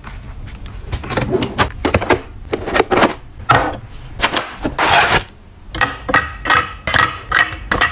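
Close-miked handling of plastic containers: a screw cap turned on a plastic capsule bottle, a plastic bin set down, then small oral-liquid vials tapped and clinked into the bin. It is a run of sharp clicks and taps that comes quicker near the end.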